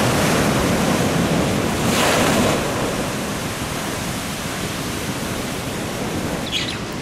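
Ocean surf breaking and washing over a rocky shore: a steady rush of waves, with a louder surge about two seconds in, easing a little afterwards.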